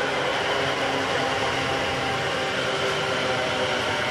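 Class 730 Aventra electric multiple unit running past, with a steady rumble of wheels on rail and a steady motor hum.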